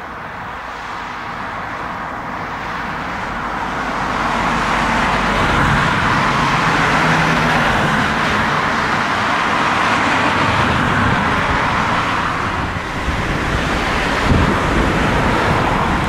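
Jet noise from the four CFM56 turbofan engines of an Airbus A340-300 as it moves along the runway with its exhausts toward the listener. The sound swells over the first few seconds, then holds steady and loud.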